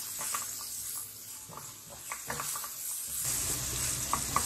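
Sliced onions sizzling as they sauté in hot oil in a wok, stirred with a spatula that scrapes and taps against the pan. The sizzling gets louder about three seconds in.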